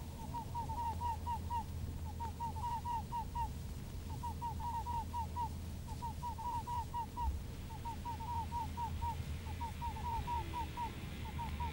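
Bursts of quick, high, squeaky calls, about five to eight short notes per burst, repeating every second or so over a steady low hum.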